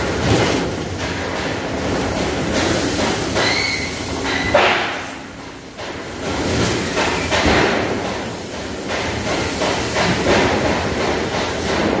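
Sheet-metal HVAC duct-line machinery running, a steady clattering machine noise broken by repeated metal knocks and thuds. A short high beep sounds about three and a half seconds in, followed by one loud bang.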